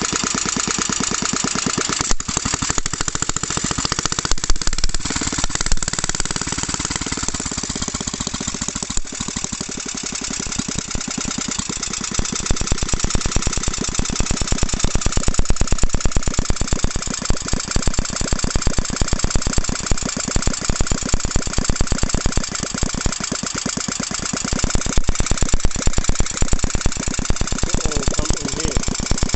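Small Scammell stationary engine running, with a rapid, even firing beat. It gets a little louder twice, around the middle and near the end.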